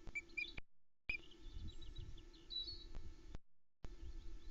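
Osprey calling with a few short, high whistled chirps, over fainter higher bird notes and a low rumble. The sound cuts out completely twice, each time for about half a second.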